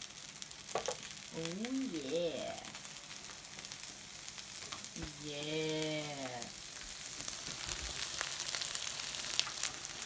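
Sheep bleating twice, a short wavering call and then a longer one, over a steady crackling hiss.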